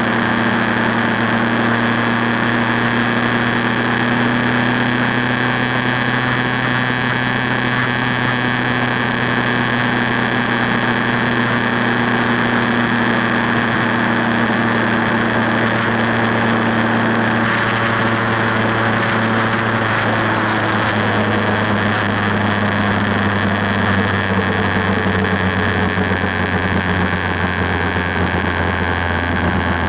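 Motorcycle engine running at highway cruising speed, mixed with a steady rush of wind. In the second half the engine note drops lower in a couple of steps.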